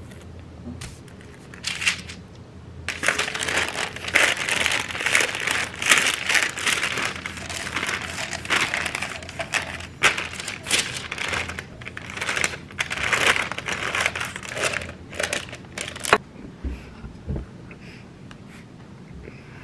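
Parchment paper crinkling and rustling under a drinking glass as cookie dough is rolled out between the sheets, with many small crackles; it dies down near the end.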